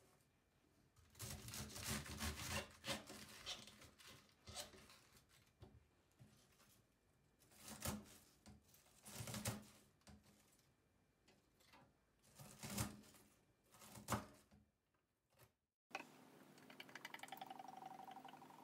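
Kitchen knife shredding a cabbage wedge on a wooden cutting board, in several short runs of quick cuts. Near the end, liquid pours into a glass bottle.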